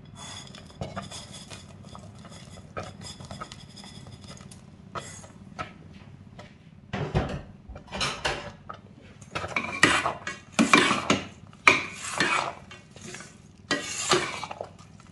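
Jaggery tipped from a pan into a steel pot of thick cooked rice and lentils, then a spoon stirring it in, scraping against the pot. The scraping comes in a series of strokes about a second apart, louder in the second half.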